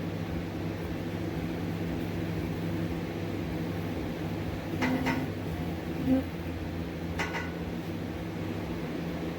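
Steady machine hum with a few sharp metallic clicks about five and seven seconds in, and a short knock just after six seconds.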